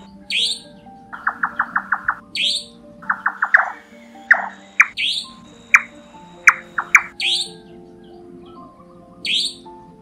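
Recorded nightjar calls played as a trapping lure, mixed over background music. The calls are short, sharp falling notes every second or two, with a quick run of about seven clicking notes about a second in and a shorter run of four about three seconds in.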